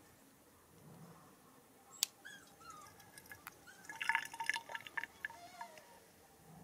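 A steel ladle clinks once about two seconds in. About four seconds in, a ladleful of tomato juice pours into a plastic funnel over a glass bottle, giving a short burst of gurgling and dripping.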